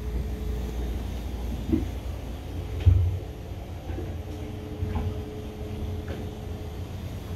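A steady low hum with a few light knocks and one short thump about three seconds in, from someone moving about and handling things in a small boat bathroom.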